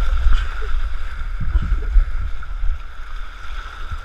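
Water rushing and splashing down a fibreglass water slide under sliding riders, with a heavy low rumble of wind buffeting the microphone.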